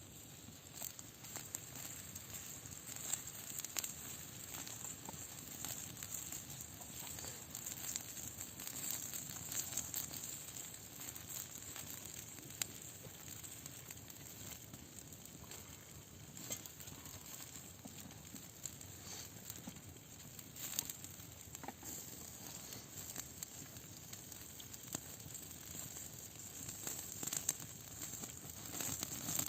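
Campfire crackling with many irregular pops, a few of them louder, over a steady sizzle of food cooking on the fire.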